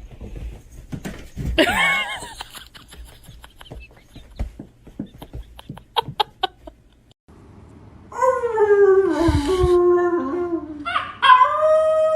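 Scattered taps and clicks, then an animal's long calls from about eight seconds in: one drawn-out call falling in pitch, then a steady held one.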